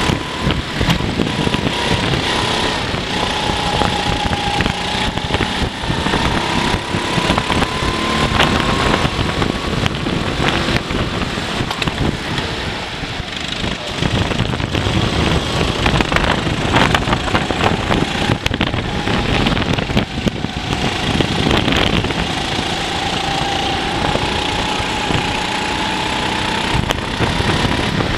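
Racing go-kart engine heard from on board the kart, running hard at speed. Its whine slowly climbs and falls as the kart speeds up and slows, with the engine easing off briefly about halfway through and again about two-thirds of the way through.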